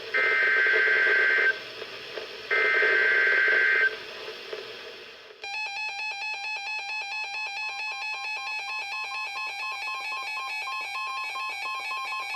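NOAA Weather Radio SAME header: the last two of three bursts of warbling two-tone digital data, each about a second and a half long, with a short gap between them. A weather radio's electronic alert alarm then starts after about five seconds, sounding a rapid, steady pulsing beep of several tones.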